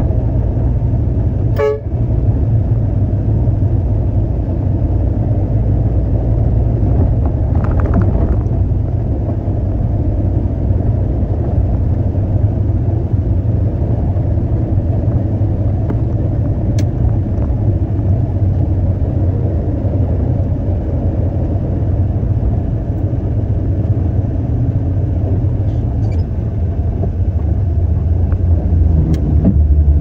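Concrete mixer truck's diesel engine running with a steady deep rumble. A brief toot comes about two seconds in.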